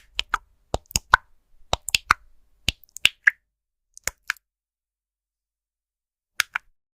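Keys being typed on a computer keyboard: sharp separate key clicks in quick, uneven runs, a pause of about two seconds, then two more keystrokes near the end.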